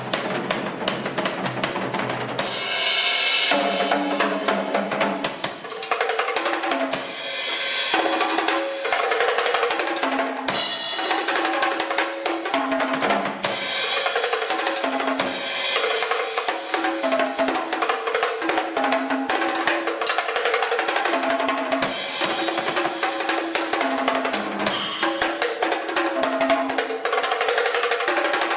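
Drum kit played continuously with cymbals, with a line of held pitched notes moving in steps underneath.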